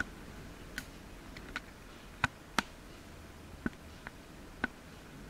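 Scattered light clicks and taps from handling, about eight in five seconds, each short and sharp, over a faint steady hiss.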